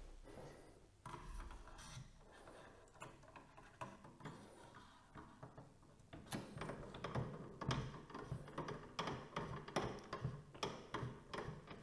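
A screwdriver turning a CPU cooler's mounting screw through the hole in the top of the heatsink. It makes faint, light scraping at first, then from about six seconds in a run of irregular small metal clicks and ticks.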